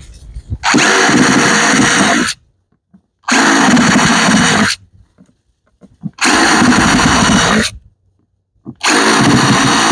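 Electric drill running in four short bursts of about a second and a half each, with pauses between, drilling holes in a planting container.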